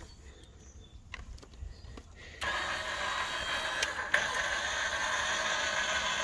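A few faint clicks, then the electric motor of a RAM EJ-3520 power tongue jack starts about two and a half seconds in and runs steadily as it drives the jack, moving a little slowly.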